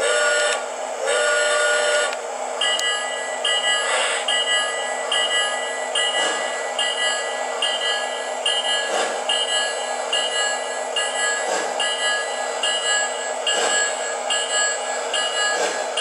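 Electronic sound system of a model train: two short horn blasts, then a bell ringing steadily about twice a second over a steady rumble.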